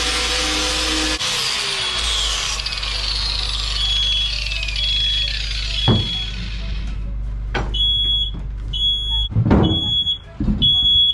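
Angle grinder with a sanding disc on steel, switched off about a second in and winding down with a long falling whine. A smoke alarm starts beeping with a high single tone, and in the second half its beeps come about once a second. There are a few knocks.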